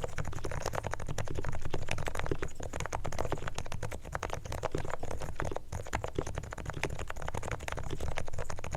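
Fast, continuous typing on a Realforce R3 silent 45g Topre (electrostatic capacitive) keyboard, keys bottoming out in a dense stream of soft clacks over a steady low hum.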